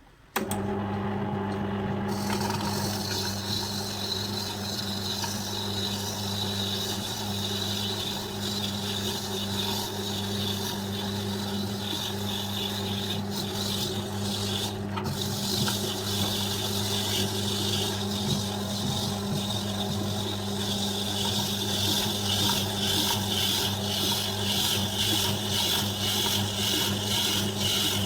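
Prestige wet grinder's electric motor switching on suddenly and running steadily, with a constant hum and a gritty scraping noise over it.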